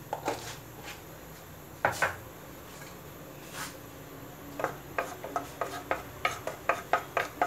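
A spatula stirring turmeric through hot oil in a non-stick kadai, knocking and scraping against the pan. There are single knocks near the start and about two seconds in. About halfway through, a quick run of clicks starts, about three or four a second.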